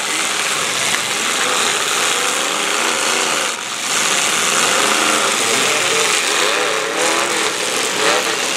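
Several demolition derby cars' engines running and revving together, their pitch rising and falling as the cars manoeuvre.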